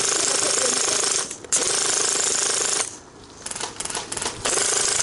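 Classic Army M132 airsoft microgun firing long full-auto bursts, a dense rapid stream of BBs over the steady whine of its motor-driven barrels. The fire breaks off about a second in, resumes briefly, stops near the middle, then comes back in a few short bursts and one more sustained burst near the end.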